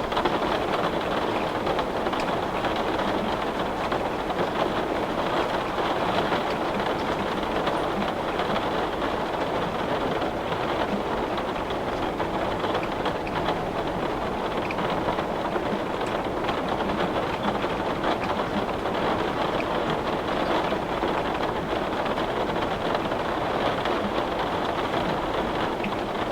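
Heavy rain falling steadily on glass: a dense, even hiss of countless drop impacts.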